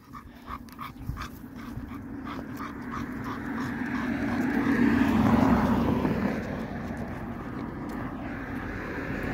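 Bulldog panting in quick, even breaths, about three a second. A passing car's noise swells to a peak near the middle and then fades.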